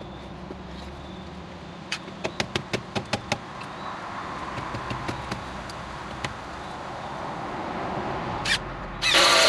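Construction work: a quick run of about eight sharp knocks, then a few scattered taps, and a short, very loud burst of a power tool near the end.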